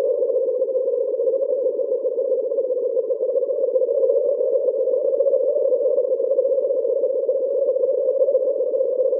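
Synthesized 'alien insect' ambience sound effect: a steady, dense drone centred low in the midrange, with a rapid fluttering texture and a fainter higher layer above it.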